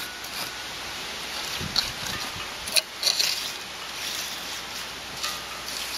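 Wooden 2x3 block working wet concrete, patting and scraping it, heard as a few soft, scattered taps over a steady background hiss.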